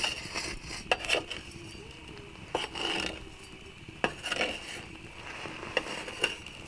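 Corn cobs being turned and shifted in a metal pan of hot ash and grit: gritty scraping and rubbing, with about half a dozen sharp clinks and knocks of a metal skimmer and a wooden paddle against the pan.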